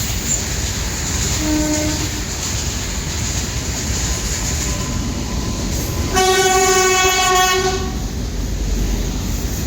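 EMD WDG 4 diesel-electric locomotive and its train running through without stopping, with a steady rumble of wheels on track. About six seconds in, the locomotive's horn sounds one loud, steady note for nearly two seconds. A shorter, fainter toot comes about one and a half seconds in.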